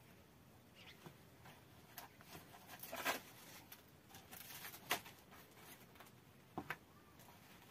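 Faint rustles, scrapes and light knocks of flatbread being taken out of an earthen oven and handled, with a louder scrape about three seconds in, a sharp knock near five seconds and two quick clicks near the end.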